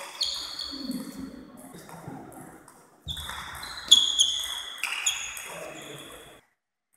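Table tennis rally: the plastic ball clicks off the bats and the table, each hit ringing briefly in a large hall, the loudest hit about four seconds in. The sound cuts out to dead silence about six and a half seconds in.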